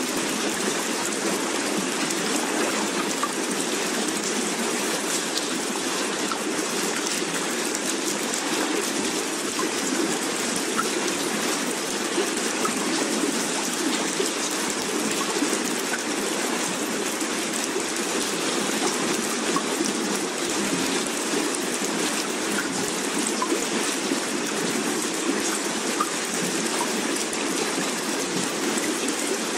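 Steady rushing water ambience, an even hiss with no breaks or changes.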